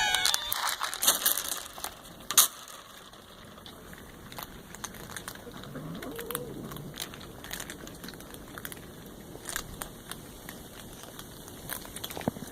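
Irregular crackling and clicking, like crinkling or handling noise, with one sharp loud click about two and a half seconds in.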